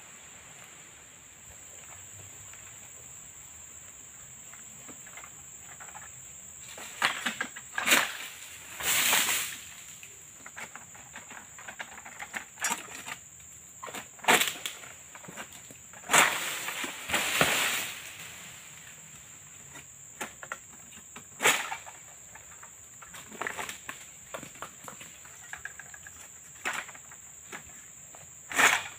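Long-poled oil palm harvesting sickle (egrek) hooking and pulling through palm fronds: irregular bursts of cutting and rustling, several loud ones a second or two long, starting about a quarter of the way in. A steady high insect drone runs underneath.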